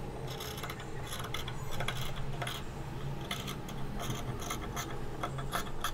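Tailor's shears cutting through kurti fabric along a marked neckline: a run of short irregular snips, several a second, with the blades rasping through the cloth.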